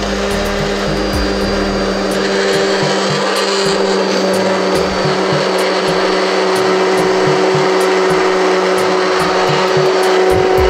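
Hand-held immersion blender running steadily with its blade down in a pot of tomato sauce, puréeing it: a constant motor hum over the churning of the sauce.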